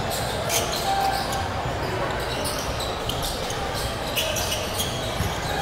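Basketball game in a gym: a ball bouncing on a hardwood court and players' shoes moving on the floor, with scattered knocks and a few short squeaks over steady hall noise and faint background voices.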